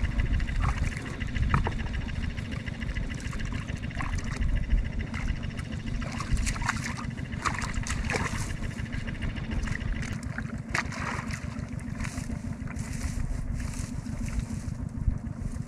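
A steady low motor drone runs throughout, with short splashes of water scattered through it.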